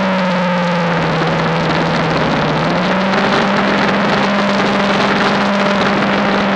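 Snowblower engine running under load while cutting into a deep snowdrift, with a steady rush of snow through the auger and chute. The engine note sags slightly for the first few seconds, then climbs back up about three seconds in.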